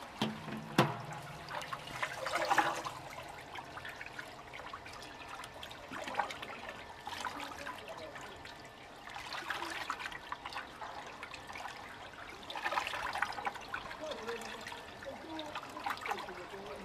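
Water sloshing and splashing in a 380-litre stainless steel agitated tank, churned by the running impeller, swelling and easing in uneven surges. A sharp knock about a second in.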